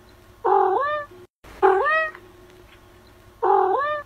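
Cat meowing three times, each meow about two-thirds of a second long and rising then falling in pitch.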